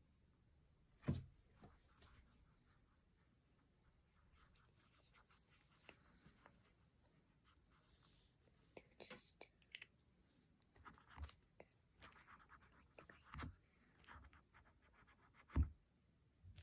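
Faint scratching of a liquid chalk marker tip being worked over coloring paper, with four short knocks, the loudest near the end.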